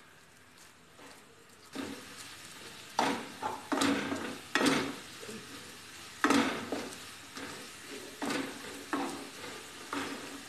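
Coarsely ground moong dal sizzling in hot ghee in a non-stick pan, stirred and scraped with a spatula in repeated strokes while it is roasted toward golden. Quiet for the first couple of seconds, then a steady frying hiss; the scrapes are loudest in the middle and lighter near the end.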